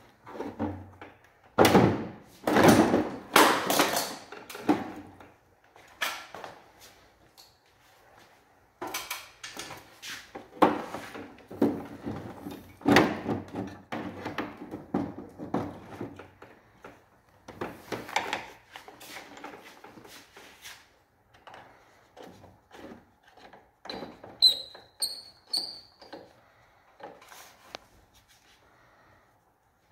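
Irregular knocks, rattles and scrapes of hands and a tool working behind a wall-mounted split air conditioner's indoor unit, fitting its flared copper pipe connections against the plastic casing. The loudest clatter comes in the first few seconds, and a few short high squeaks are heard late on.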